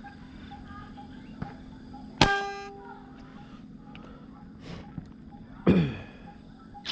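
A rubber-powered fish speargun fired once about two seconds in: a sharp snap followed by a ringing metallic twang that dies away in about half a second. Near the end comes a second short, loud sound sliding down in pitch, over faint regular chirping.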